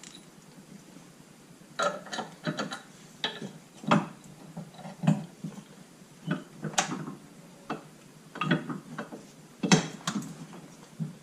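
Ratchet wrench and metal tools clicking and clanking in short, irregular bursts as bolts are worked on the car's suspension, starting about two seconds in. The bolts are most likely the upper camber kit bolts being put back on.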